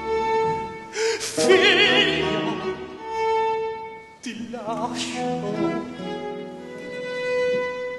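Baroque opera: a singer's sustained notes with wide vibrato over a period-instrument string band. The vibrato notes come about a second and a half in and again around four and a half seconds, with long held string notes between.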